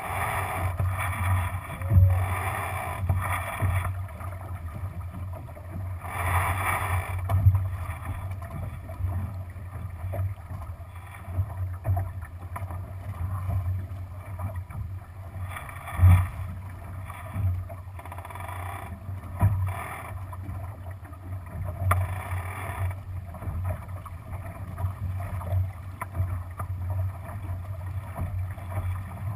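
Water washing and splashing along the hull of a Lightning-class sailboat under way, swelling and fading every few seconds over a low steady rumble. A few sharp knocks stand out.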